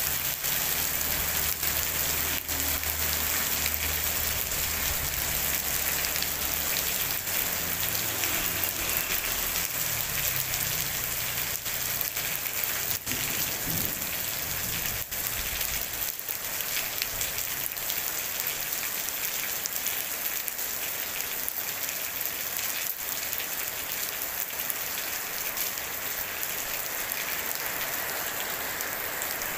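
Steady rain falling on wet paved ground and puddles, with a few sharper drip ticks. A low hum runs underneath during the first half and fades out about halfway through.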